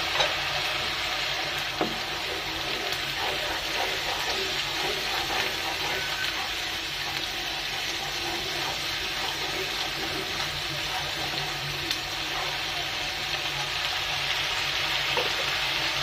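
Ginger-garlic and cumin paste frying in hot oil with onion paste in a non-stick wok: a steady sizzle, with a wooden spatula stirring through it.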